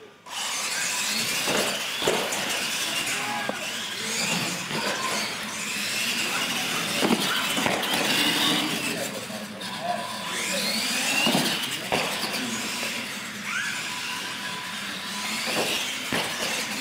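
Radio-controlled monster trucks racing on a smooth concrete floor: motors whining up and down in pitch, tyres squealing, and a few sharp knocks as they land and bump. Voices of onlookers in the background.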